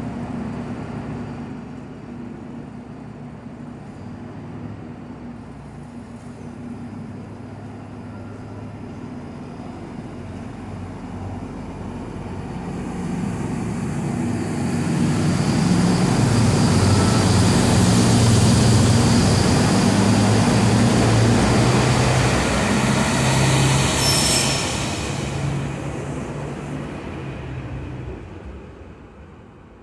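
Siemens Desiro class 10 diesel multiple unit pulling along the platform and passing close by, its diesel engine note growing louder as it nears and loudest about halfway through. A brief high squeal comes near the end, then the sound fades as the train moves away.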